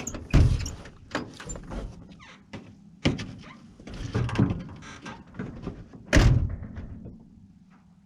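A run of knocks and clatter around an old pickup truck's cab, ending about six seconds in with the loudest heavy thump, the truck door slamming shut.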